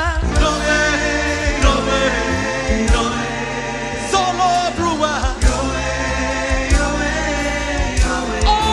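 Live gospel music: a choir singing sustained held chords over a band with bass and a steady drum beat.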